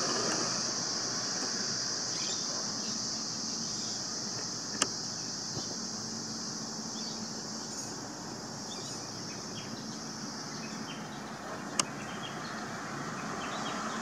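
Outdoor ambience: a steady high-pitched hiss over a low rumble, with a few faint short chirps and two sharp clicks, about five and twelve seconds in.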